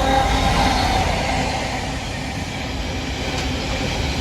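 Freight train passing through a station: a steady noise of wheels and wagons, loudest about half a second in. A few steady tones fade out over the first second or so.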